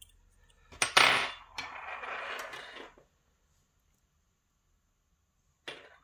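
A small metal lock pick being picked up and handled against a hard surface: a click about a second in, then about two seconds of metallic clatter and scraping, and a single short click near the end.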